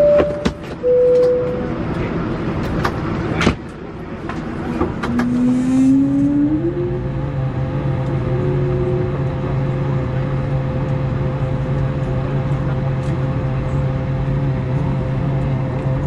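Cabin noise of an Airbus A220-300 taxiing, heard from a window seat behind the wing: its Pratt & Whitney geared turbofans run up with a rising whine about five seconds in, then settle into a steady hum and whine. The first few seconds hold a few sharp clicks and two short tones.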